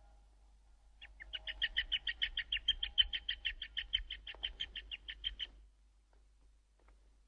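A rapid run of high chirps, about seven a second, starting about a second in and stopping suddenly after about four and a half seconds.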